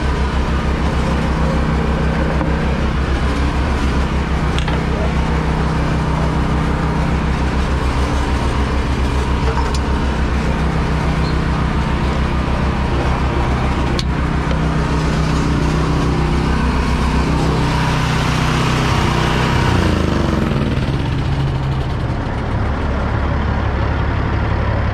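Kenworth T800's straight-piped Caterpillar C15 diesel idling steadily with an even, low pulsing. A single sharp click comes about halfway through, and a short rush of noise about three-quarters of the way through.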